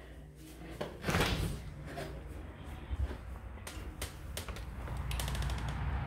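A back door being opened and walked through: a loud rattle about a second in, then several clicks of the handle and latch, with a quick run of clicks just after five seconds. A low rumble builds near the end.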